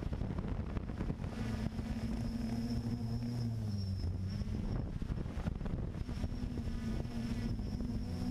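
Quadcopter drone's motors and propellers humming steadily, picked up by the drone's onboard camera, with wind buffeting the microphone. The hum dips in pitch briefly about four seconds in and again near the end.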